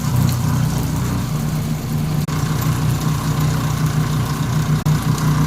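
A machine motor running steadily and loudly, a low hum under a broad hiss, with two very brief dropouts partway through.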